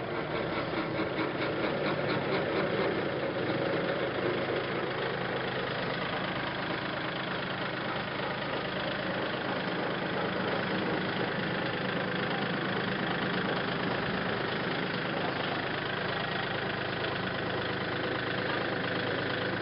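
Kubota L4018 tractor's three-cylinder diesel engine running steadily at an even speed.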